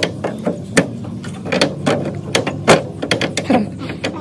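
Irregular knocks and clanks of a steel-framed plywood rack shelf being lowered and pressed onto a second frame, its metal corner posts seating into the frame below. About a dozen sharp knocks, the loudest about two-thirds of the way through.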